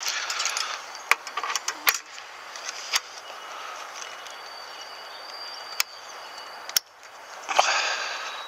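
Sharp metal clicks and knocks, about half a dozen spread out, among rustling from handling, as the metal bar and clamp of a Relaxdays Bike Springer dog attachment are worked on a bicycle frame. The loudest click and a burst of rustling come near the end.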